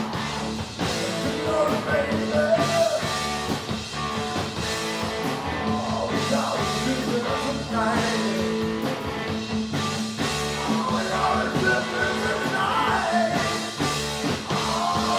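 Live rock band playing, with a sung melody over guitar and drums.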